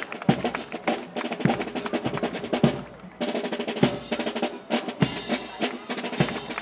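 Parade band music: drums with a heavy beat a little more than once a second under steady pitched instruments. The sound drops away briefly and comes back abruptly just after three seconds in.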